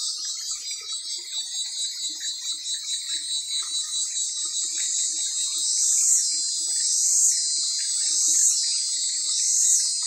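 Cicadas buzzing in a steady, high-pitched chorus that pulses a few times a second. From about halfway through, a call swells and fades in a regular rhythm, roughly once a second.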